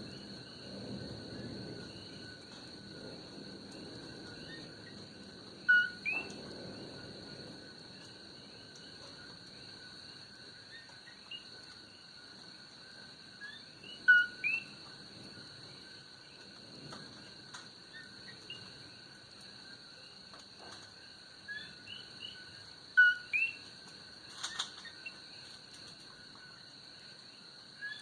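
Night chorus: a steady high insect trill with repeated two-note "ko-KEE" calls of coqui frogs, each a short low note then an upward sweep, the loudest sounds heard. Under them is a low rumble from the Kilauea fissure eruption, strongest in the first several seconds and then fading.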